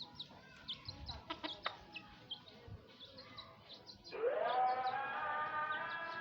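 Short high chirps repeated a few times a second, from a male Sumatran green leafbird (cucak ijo). About four seconds in, louder music comes in over them, opening with a tone that slides up and then holds.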